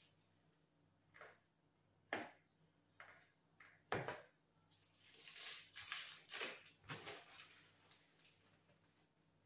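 Faint kitchen handling sounds: a metal spoon knocking against a plastic bowl, sharply about two and four seconds in, and small plastic bags rustling for a couple of seconds after the middle as salad is spooned into them.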